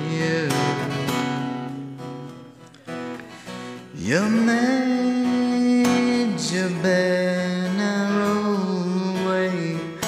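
Song music with a lead melody that goes quieter partway through, then slides up about four seconds in into long held notes.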